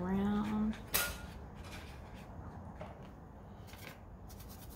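A short hummed voice fades out at the start, and a sharp click follows about a second in. Near the end a water brush scrubs quickly in a paint well of a watercolour palette, a fast run of scratchy rubbing strokes as it picks up pigment.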